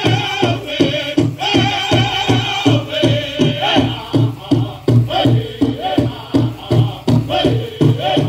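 Powwow drum group: several voices singing wavering, sustained notes over a large drum struck in a steady beat, about four strokes a second, accompanying a jingle dress dance.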